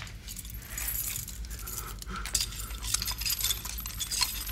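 Metal chains and shackles clinking and rattling in a string of short, irregular jingles.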